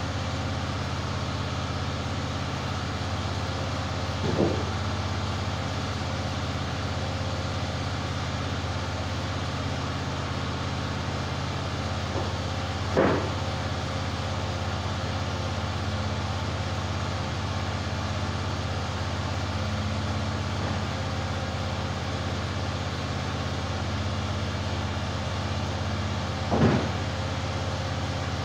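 EZ Boardwalk 40 bandsaw mill's engine idling steadily, with three separate sharp thuds: one about four seconds in, one midway and one near the end.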